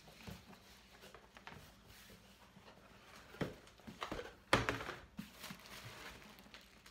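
Packaging being handled: tissue paper rustling and a cardboard box knocked about as it is unpacked, in a string of short rustles and knocks, the loudest about four and a half seconds in.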